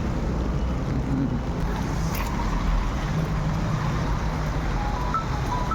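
Steady rumble of a car on the move: engine hum and road noise, with a few short high beeps near the end.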